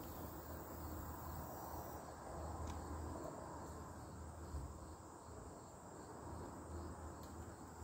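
Faint steady outdoor insect chirring, with a few faint clicks.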